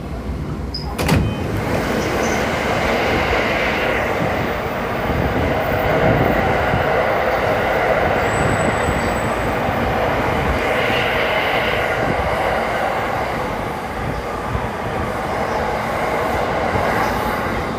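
JR E233-2000 series electric commuter train running between stations, heard inside the passenger car: steady rolling noise of wheels on rail, with one sharp knock about a second in.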